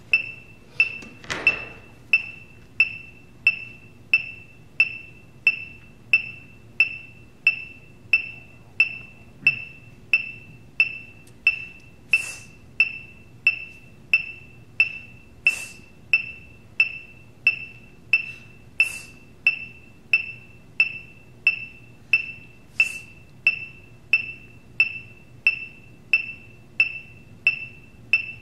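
Electronic metronome ticking steadily, each tick a short high-pitched beep, about three beats every two seconds. A few short bursts of hiss come in between, every few seconds.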